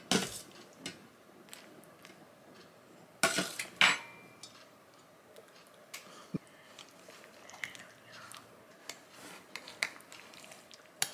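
A metal ladle clinks against a stainless steel saucepan and a ceramic bowl as tomato sauce is spooned out, loudest in two sharp knocks a few seconds in. After that come lighter scattered clinks and scrapes of a fork in the bowl.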